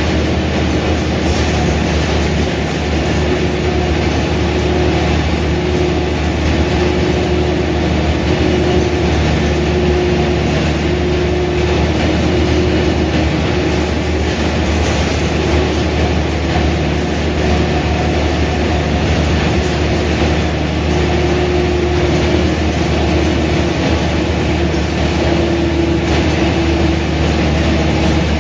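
Mercedes-Benz O345 Türk city bus underway, its diesel engine and drivetrain giving a steady drone with a faint whine that comes and goes.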